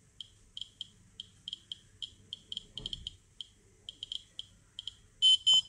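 Handheld Geiger-counter dosimeter chirping once for each detected particle from a weak potassium-40 source: short high beeps at irregular intervals, about five a second. Near the end the dosimeter's alarm starts beeping loudly and steadily.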